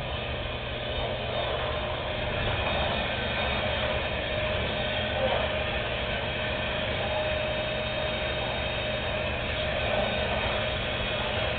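Vacuum cleaner motor running steadily, a continuous rushing drone with a faint steady whine.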